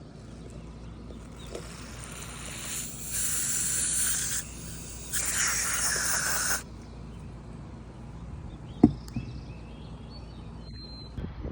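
Aerosol electrical contact cleaner sprayed into a marker-light bulb socket in two hissing bursts of about a second and a half each, to clean a bad electrical contact. A single sharp click follows a couple of seconds later.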